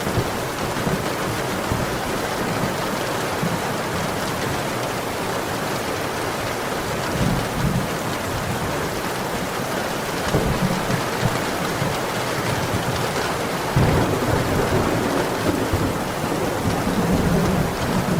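Steady heavy rain with a few low rolls of thunder, the longest near the end.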